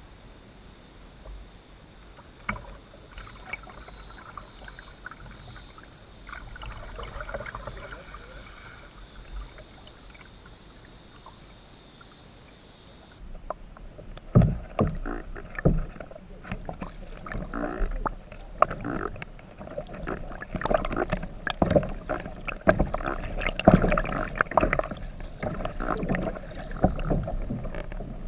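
Kayak paddling: paddle blades splashing and dripping, with sharp knocks, for the first half under a steady high cicada drone. The drone cuts off suddenly about halfway, and the paddle splashes and knocks then come louder and thick and fast.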